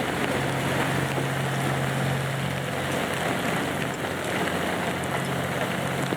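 Heavy rain falling steadily, with the low, steady drone of DE10 diesel-hydraulic locomotives' V12 engines running as the double-headed train moves slowly.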